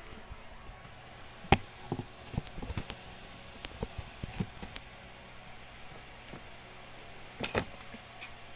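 Handling noises: a sharp knock about one and a half seconds in, then scattered light taps and clicks, with a cluster near the end as a deck of oracle cards is picked up and handled.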